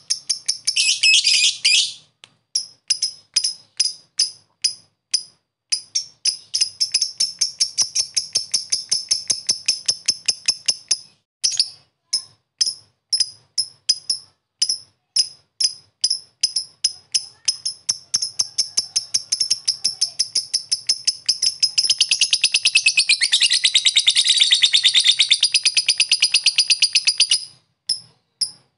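Blue masked lovebird calling in sharp high-pitched ticks, about two or three a second, that break into long, very fast chattering trills: briefly at the start, from about six to eleven seconds in, and again from about twenty-two seconds until near the end. This is the lovebird's long chatter ("ngekek panjang") with its ticking call ("ngetik").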